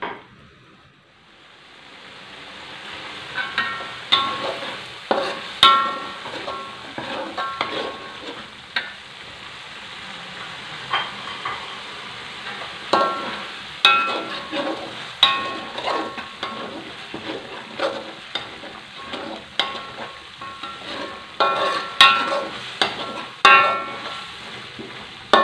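Blended spice paste sizzling in a wok while a metal spatula stirs and scrapes it, with frequent sharp clinks of the spatula on the pan that briefly ring. The sizzle builds up over the first couple of seconds. The paste is being fried until its water cooks off.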